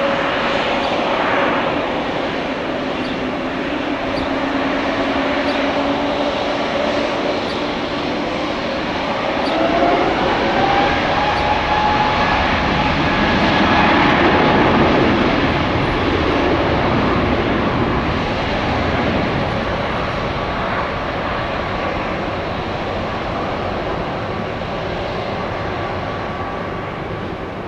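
Airbus A320neo jet engines at takeoff power on a departure: a rising whine about a third of the way in as the engines spool up, then a steady jet roar that is loudest around the middle and slowly fades.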